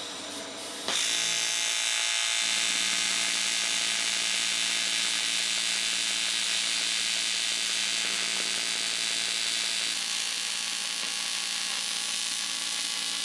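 AC TIG welding arc on aluminium, struck about a second in, then burning with a steady buzzing hiss; a lower hum joins a moment later and holds to the end.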